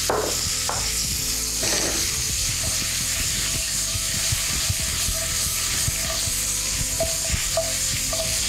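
Prawns sizzling in melting butter in a non-stick frying pan, a steady hiss, with short knocks and scrapes as the pan is shaken and tossed on the gas burner.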